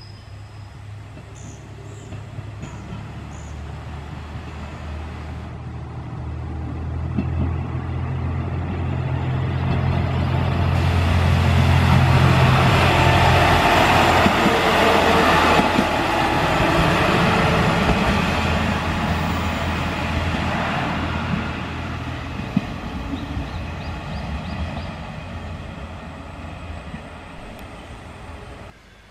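JR Shikoku 1000 series single-car diesel railcar coming up and running past. Its engine hum and wheel-on-rail noise grow loudest about halfway through as it passes close by, then fade as it draws away.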